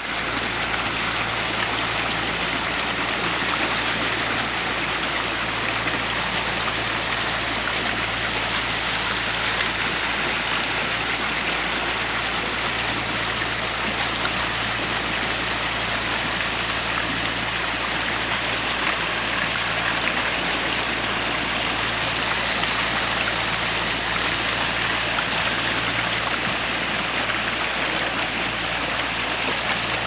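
Small motorboat under way: a steady rushing of water and air with a low, even engine hum beneath it.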